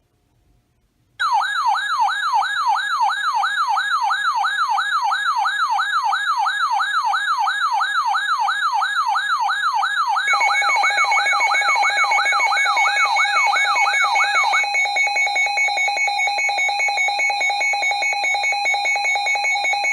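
Weather alert radio's alarm going off for an incoming high wind warning: a wailing siren tone sweeping up and down two to three times a second. About ten seconds in, a second steady two-tone alarm joins it. The wail stops a few seconds later and the steady alarm tone carries on.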